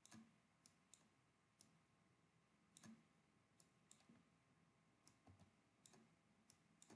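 Faint computer mouse clicks, about a dozen at irregular intervals, over near silence.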